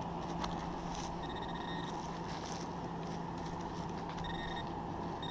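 Handheld pinpointer probe sounding a steady high beep as it is worked in the dug hole, signalling buried metal close by. The beep comes in two short stretches, about a second in and about four seconds in, and starts again at the very end. Under it are faint scrapes of fingers in the soil and a steady background noise.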